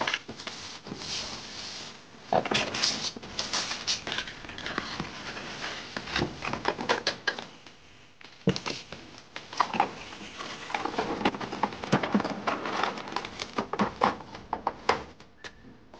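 A toy being unpacked from its cardboard box: cardboard and plastic packaging rustling and scraping, with many irregular clicks and knocks of hard plastic parts being handled.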